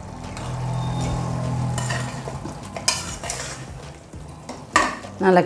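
Slotted ladle stirring thick beef curry in a pressure cooker pot, scraping and knocking against the metal side from about three seconds in. A low steady hum runs through the first two seconds.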